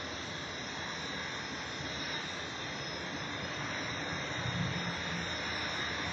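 450-size 3D radio-controlled helicopter flying low, its electric motor and rotor blades making a steady whir.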